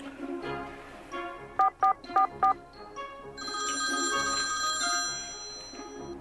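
A mobile phone ringing over background music: four short, loud two-tone ring pulses about a second and a half in, then a longer held ringtone tone a little past the middle.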